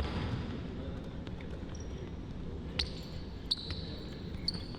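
A basketball being dribbled on a court, with sneakers squeaking sharply a few times, around three and four and a half seconds in.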